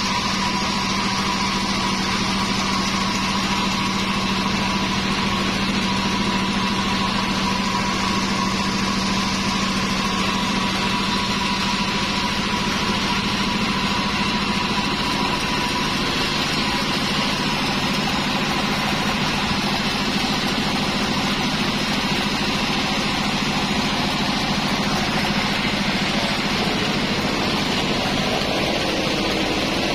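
Sawmill machinery running steadily with no cutting load: an even motor hum, with a faint high whine that fades out about halfway through.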